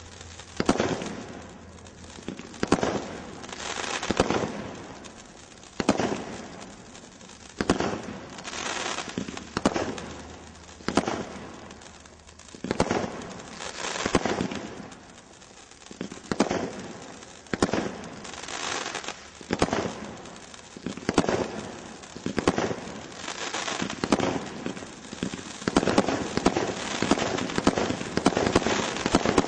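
Brothers Pyrotechnics Swords of Fire Category 3 combination roman candle firing shot after shot. There is a sharp pop about every second or so, each coming out of a swelling hiss, and the crackling grows denser near the end.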